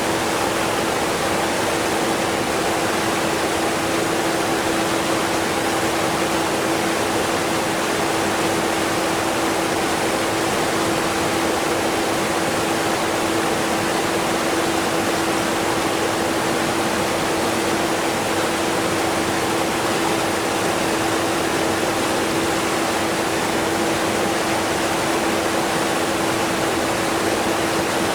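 Steady rushing of a strong waterfall mixed with a vacuum cleaner running underneath. The vacuum is barely heard as a single steady hum, and the mix does not change.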